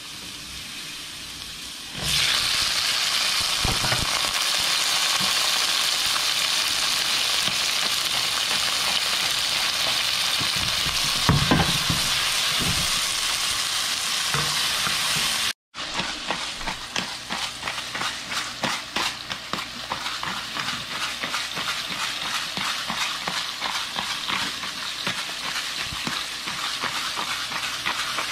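Garlic sizzling in hot oil in a frying pan, turning to a much louder sizzle about two seconds in as cherry tomatoes fry. After a short break in the sound, the tomatoes crackle and spit with many small pops as they are stirred in the pan.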